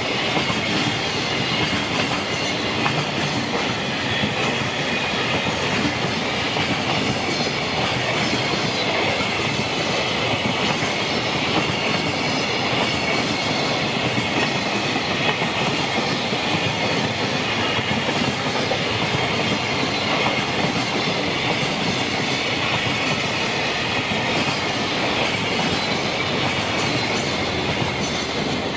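Container flatcars of a JR Freight train rolling past close by: a steady loud rumble and clatter of steel wheels on the rails, with a thin high squeal from the wheels running through it.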